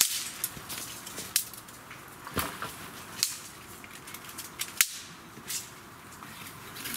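Dry wood clicking and knocking as long thin poles are handled and set down among other sticks, with twigs cracking: about half a dozen sharp cracks spread out, one duller knock about two and a half seconds in and the sharpest crack near five seconds.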